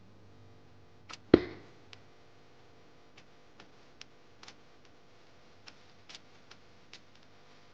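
One heavy knock on a bamboo cutting board about a second in, then faint, irregular clicks as soft seeded dough is turned out onto the board.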